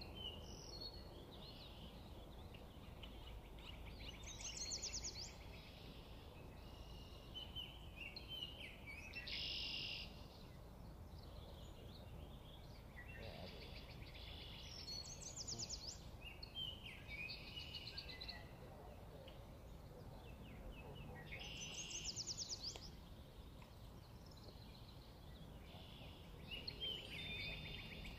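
Wild songbirds singing, with a song phrase, some parts fast trills, recurring every five or six seconds over a steady low background rumble.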